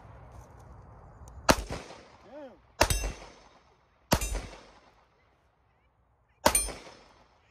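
Four pistol shots at uneven intervals, the last after a longer pause, each followed by a short echo.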